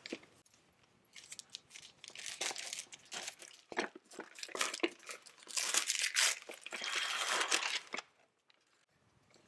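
Wrapping paper being torn and crumpled off a small gift box, in a run of rips and rustles that stops about eight seconds in.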